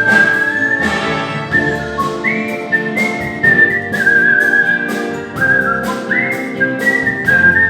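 Artistic whistling: a man whistles a clear, high melody in held notes with small steps and leaps, over an instrumental backing with a steady beat.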